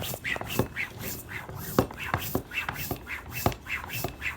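Bicycle pump being worked by hand to inflate a new inner tube: quick, even strokes, about three or four a second, each with a short hiss of air and a squeak.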